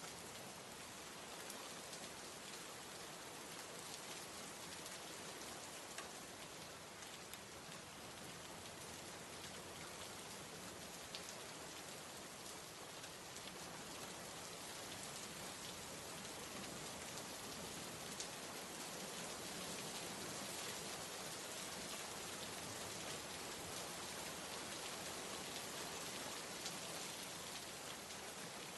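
Steady rain falling, an even hiss with scattered faint drop ticks, getting a little louder after the middle.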